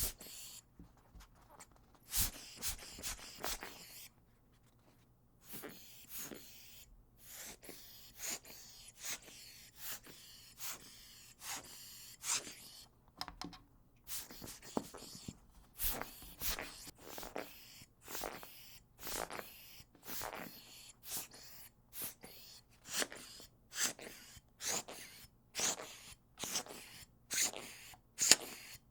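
Short puffs of blown air, one after another, roughly one or two a second at an uneven pace, with brief pauses between runs.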